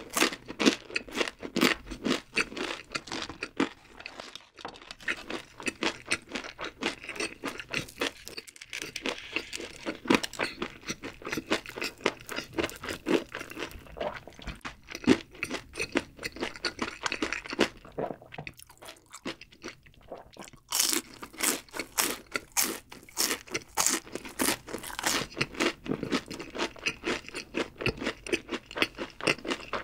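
Close-miked chewing of crisp battered fried food: a fried chicken foot or a cheese stick crunching between the teeth in a steady run of crackly bites. There are two short pauses, and the crunching is loudest and thickest about two-thirds of the way in.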